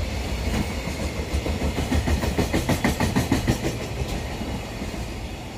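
Container freight train's wagons rolling past, with a quick run of wheel clacks over rail joints in the middle, then the sound drops away as the tail of the train goes by.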